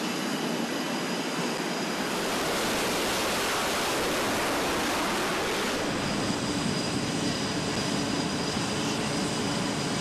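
Jet fighter engines running on a carrier flight deck: a steady rushing noise with a faint high whine above it.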